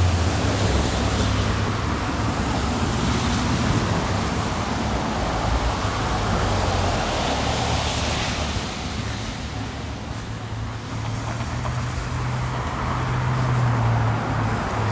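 Downtown street traffic: vehicles running and passing, with a low engine hum that fades in the middle and comes back near the end.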